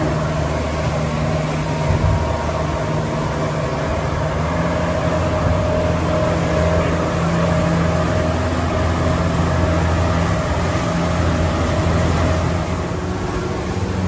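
Twin Yamaha 200 hp outboard motors running steadily at speed, a constant drone, mixed with wind and rushing water as the boat pushes through choppy sea.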